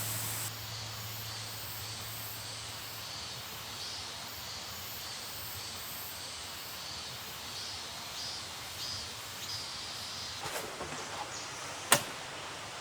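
Steady outdoor background hiss with a faint high chirp repeating about twice a second. A few light clicks come near the end, then one sharp click.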